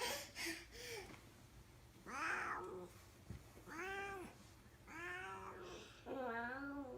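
A cat meowing four times in a row, each call arching up and then down in pitch, the last one wavering.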